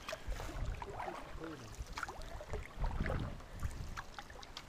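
Canoe paddles dipping and pulling through moving water: irregular small splashes and drips against the hull, over a low uneven rumble.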